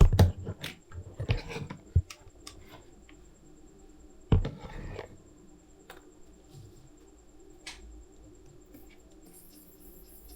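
Desk handling noise: sharp knocks and clicks with scratchy rustling, in a burst over the first two seconds and another just after four seconds in, then a faint steady electrical hum with a thin high whine.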